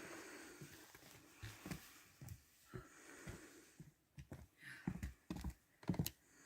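Footsteps of a hiker walking on a trail, a string of soft, uneven thumps with small clicks, loudest between about five and six seconds in.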